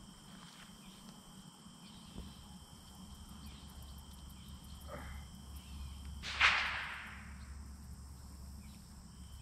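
A short splash about six seconds in as a long-handled net is swept through the pond water to scoop up bait fish, with a smaller splash just before it. Insects drone steadily in several high tones throughout.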